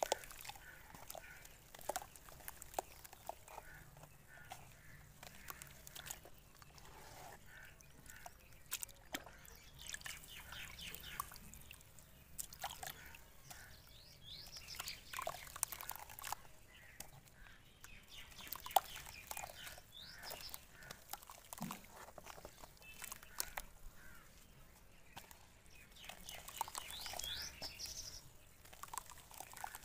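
Soaked lumps of dirt crumbled and squeezed by hand in a tub of water: soft crumbling, small splashes and drips, with many faint clicks as pieces break.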